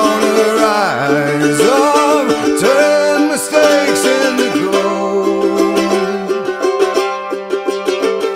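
Background country song in an instrumental stretch between sung lines: plucked strings under a lead melody that slides up and down in pitch.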